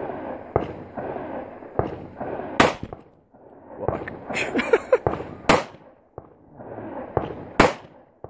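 Three sharp gunshots a few seconds apart, fired at exploding targets.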